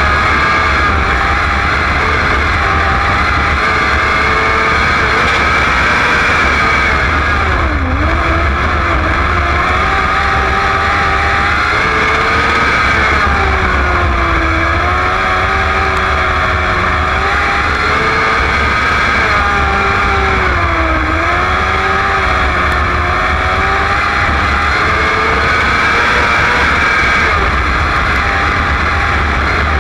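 Onboard sound of a winged sprint-type race car's engine at racing speed on a dirt oval. Its pitch drops several times as the driver lifts for the corners and climbs again down the straights.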